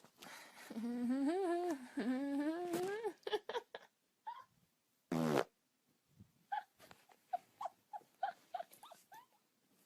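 A long, pitched fart that wavers up and down for about two and a half seconds, then a short, sharp one about five seconds in. After it comes a run of short, high squeaks, roughly two or three a second.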